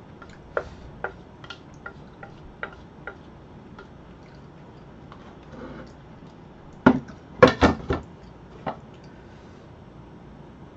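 Large noodle bowls clinking and knocking against each other while leftover jjajang sauce and meat are tipped from one bowl into another: a run of light taps, then a cluster of louder knocks about seven to eight seconds in.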